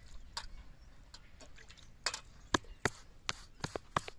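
Hands kneading pearl-millet (bajra) dough in a steel plate: a series of sharp clicks and taps, one early and then coming every half second or so from about two seconds in.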